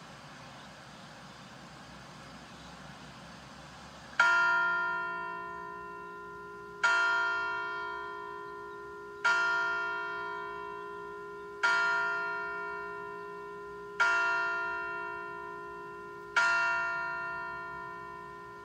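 Clock-tower bell striking the hour: after a few seconds of steady background noise come six evenly spaced strokes, each about two and a half seconds apart, each ringing on and fading slowly. With the next stroke just after, they count out seven o'clock.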